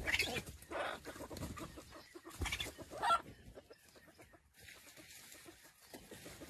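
Red junglefowl (wild chicken) clucking: a handful of short clucks over the first three seconds or so, the loudest about three seconds in, then the calls stop.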